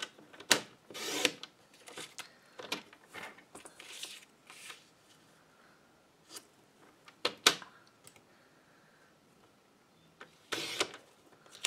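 Stampin' Up! paper trimmer in use on designer paper: scattered sharp clicks of the trimmer arm and blade housing, and short scrapes of paper being slid into place. A longer scrape comes near the end as the blade is drawn along to cut.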